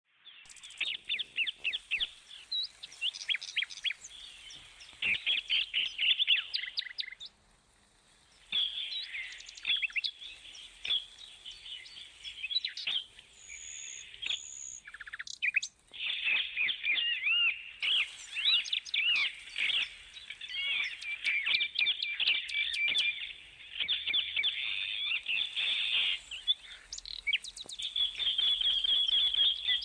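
A flock of parrots chirping and chattering in rapid, high calls. The calls break off briefly after about seven seconds and again around fifteen seconds.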